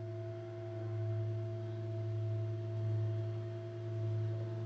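Large Tibetan singing bowl played with a wrapped wooden mallet, ringing with a steady deep hum and fainter higher overtones that swell and fade slowly.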